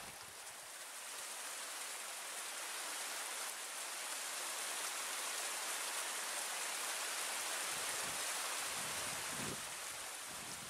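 Steady rushing of a snowmelt mountain stream, an even hiss of water that swells slightly through the middle, with a few soft low thumps near the end.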